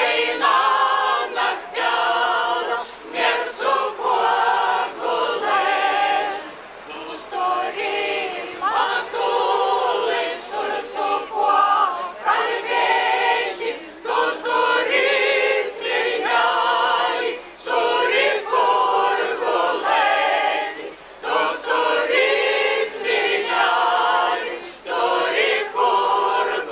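A Lithuanian folk ensemble of mostly women's voices with a few men singing a folk song unaccompanied, in short phrases broken by brief pauses for breath.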